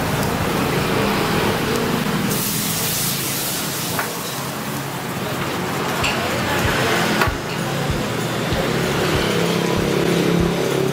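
Broth ladled into a hot wok of fried cabbage, hissing sharply for about a second at two seconds in, then bubbling, with a metal ladle knocking against the wok.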